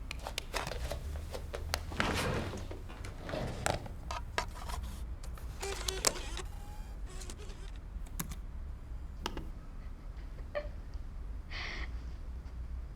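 A run of irregular clicks, knocks and rustling, as of small objects being handled and moved about, heaviest in the first half, over a steady low hum.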